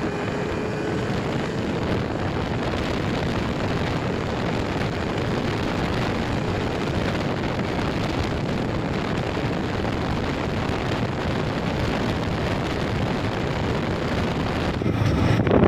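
Steady wind rush on the microphone from a Yamaha R15M motorcycle ridden at around 100 km/h, with the bike's engine and road noise running evenly underneath.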